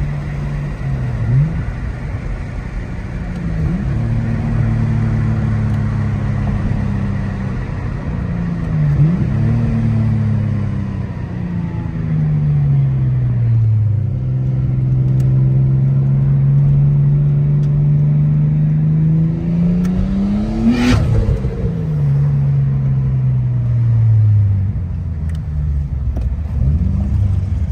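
Nissan Skyline R33's straight-six engine and exhaust, heard from inside the cabin, revving up and dropping back several times as it changes gear. About two-thirds of the way in the revs climb in one long pull, end in a short sharp burst as the throttle lifts, then fall away as the car slows.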